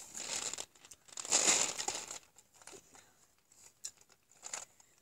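Close rustling and crinkling: two noisy bursts in the first two seconds, the second the louder, then a few faint clicks.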